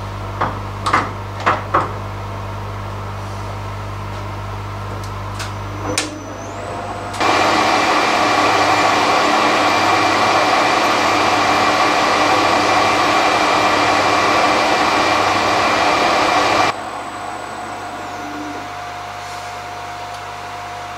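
Harrison 190 lathe running while a lapped carbide insert takes a finishing facing cut across a spinning brass disc. A few clicks come as it is set going, then about nine seconds of loud, steady cutting noise stop abruptly, and the lathe keeps running. The cut is taken at reduced spindle speed and heavier than a typical finish cut, so that it runs without ringing.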